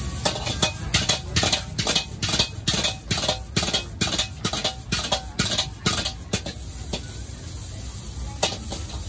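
Metal ladle clanking and scraping against a wok in quick repeated strokes, about three a second, as fried rice is stir-fried and tossed, over the steady low rush of a gas wok burner. The clanks thin out to an occasional one after about six seconds.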